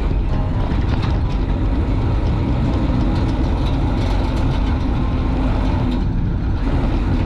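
Steady road and wind rumble from an electric surrey bike, converted with a 72-volt 3000-watt brushless motor, rolling along a paved street. A few light rattles come from its frame.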